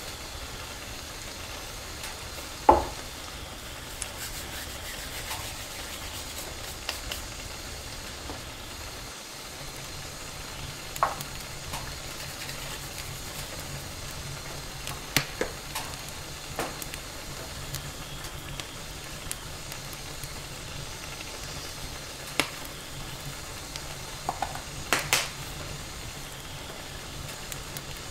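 Food frying in a pan with a steady sizzle, stirred with a utensil that clinks and knocks against the pan now and then; the loudest knock comes a few seconds in. A low hum joins about a third of the way through.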